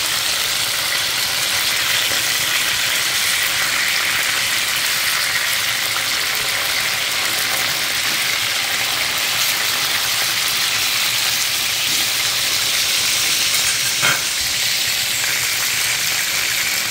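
Chicken breast pieces sizzling in hot oil in a ridged grill pan, a steady frying hiss, with one short click near the end.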